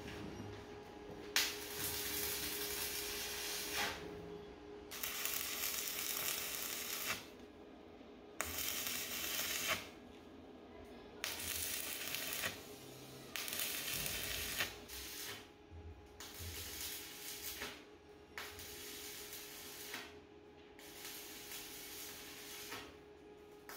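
Arc welding on steel tubing: the arc crackles and hisses in a series of short welds, each one to two seconds long with brief pauses between, the later ones shorter and fainter. A steady low hum runs underneath.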